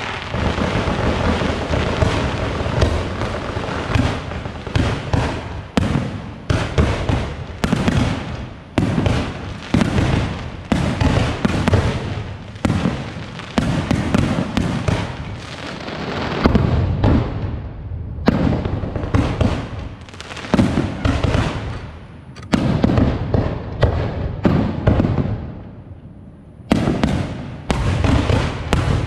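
Aerial fireworks display: shells bursting in quick succession, a dense run of bangs with two brief lulls in the second half.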